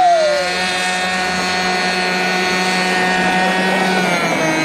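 RC airboat's motor and air propeller running at high speed as the boat skims across the water, a steady buzzing whine whose pitch dips slightly near the end.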